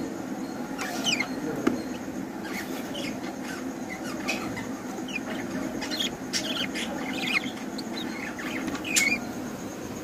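Young budgerigars chirping: short, high, falling chirps at irregular moments, the loudest about nine seconds in, over a steady low hum.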